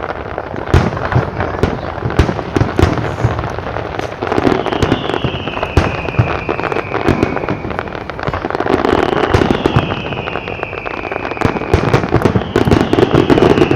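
Fireworks display: a dense barrage of rapid bangs, booms and crackling. Three long whistles, each falling in pitch, ride over it about a third of the way in, two-thirds of the way in and near the end.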